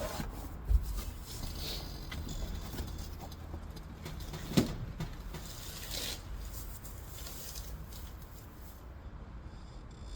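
Faint handling noises of someone working with parts by hand: a low thump about a second in and a single sharp click or knock near the middle, with quiet rustling between.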